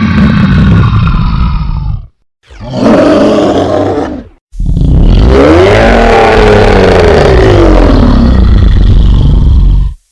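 Synthetic monster or demon roars as sound effects, three in a row with silent gaps: one ending about two seconds in, a short one, then a long deep roar of about five seconds whose pitch rises and then falls.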